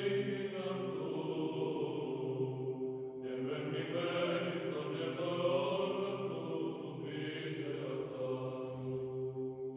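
Background music of slow choral chanting over a steady held drone note.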